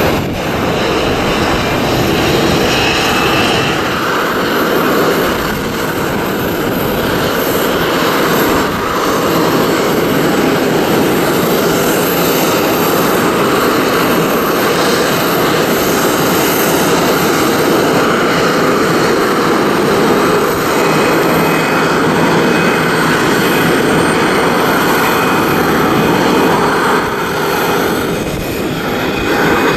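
Steady, loud jet airliner engine noise.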